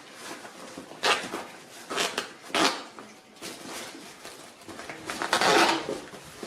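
Hard objects being handled: three short clacks, then a longer rattling scrape about five seconds in.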